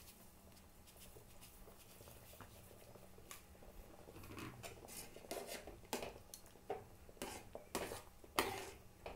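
Metal spoon scraping and knocking against an aluminium kadai while semolina is stirred into boiling water. The strokes start faint and grow louder and more frequent from about four seconds in, roughly one to two a second.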